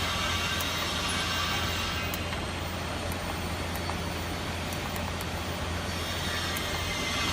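Steady low machine hum under an even wash of noise, with a few faint clicks.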